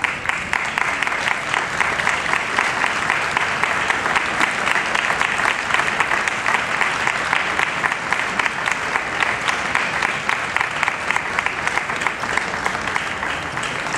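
Large indoor arena audience applauding steadily: a dense, even patter of many people clapping.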